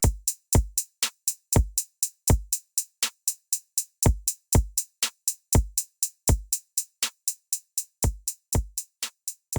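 Electronic outro music: a drum-machine beat with deep, pitch-dropping kick drums and quick hi-hat ticks.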